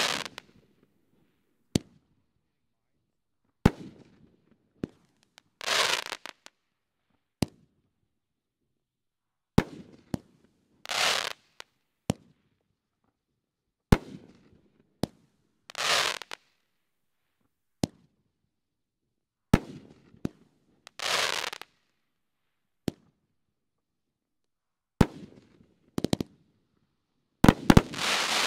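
500-gram Noisy Boys firework cake firing, alternating rotating mines and aerial breaks. Sharp single bangs come every second or two and are the loudest sounds, and about every five seconds a hissing, crackling burst lasts about a second.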